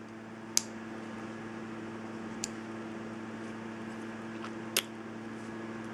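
Three sharp metallic clicks, about two seconds apart, from a Leatherman Charge AL multitool's folding locking tools being handled, over a steady background hum.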